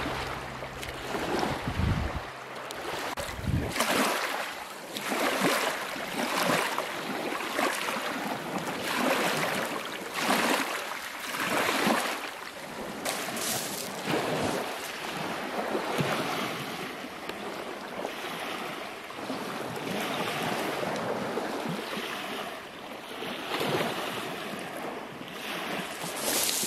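Small waves washing up on a pebble beach, the wash swelling and falling every second or two.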